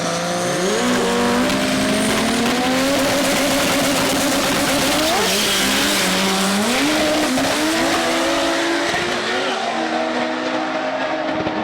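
Drag racing engine revving hard, its pitch climbing, falling back and stepping up again in stages, with a rushing noise behind it.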